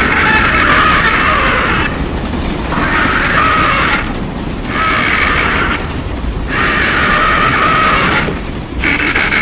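Train-horn-like blasts sounding five times in a row, each a steady two-note chord held about one to two seconds with short gaps between, over a steady low rumble.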